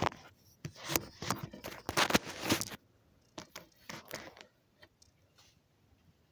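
Handling noise of a phone camera being moved and set in place: rubbing, scraping and clicks, busy for about the first three seconds, then a few scattered taps, then quiet.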